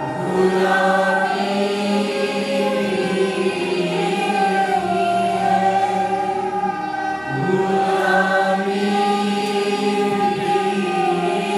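A choir of voices singing slow, long-held notes together, with a new phrase beginning about seven seconds in.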